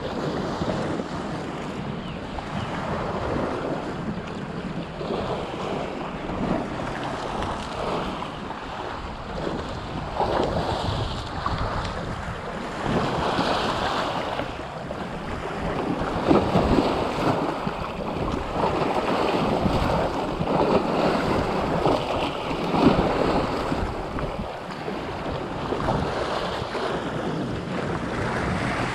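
Small waves washing up the sand and breaking over low rocks, close to the microphone, with wind buffeting it. The surf swells and eases in irregular surges.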